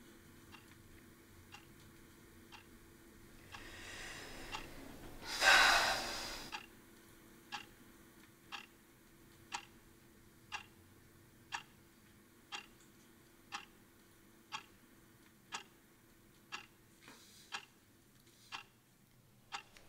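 A clock ticking about once a second in a quiet room. About five seconds in, a person breathes out heavily once, the loudest sound.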